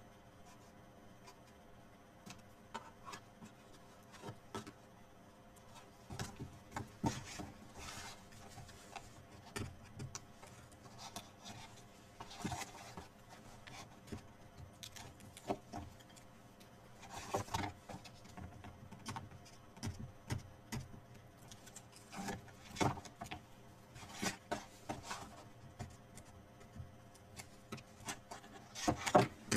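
Cardstock being handled as a paper inner box is fitted into a card box: scattered rustles, scrapes and light taps. It is quiet for the first several seconds, then the handling sounds come often, with the loudest near the end.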